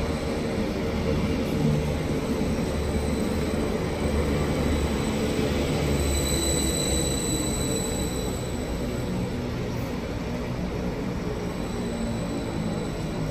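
A train running through a station, a steady low rumble with a thin high squeal rising in about halfway through and fading a couple of seconds later.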